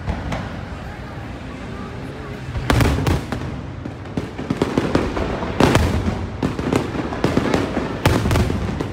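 Aerial firework shells bursting in a large display: a rumble of overlapping bangs, sparse at first and then a dense run of sharp, loud reports from about three seconds in.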